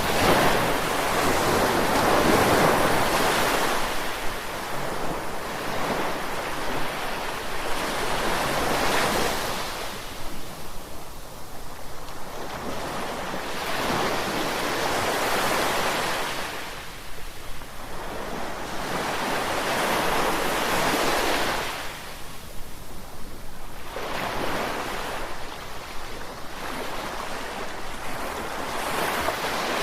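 Ocean surf breaking on a beach, the rush of each wave swelling and fading about every five to six seconds, with some wind buffeting the microphone.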